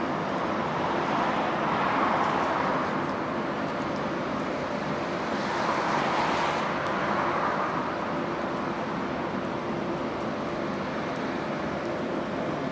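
Road traffic: vehicles passing by, their tyre and engine noise swelling about two seconds in and again about six seconds in.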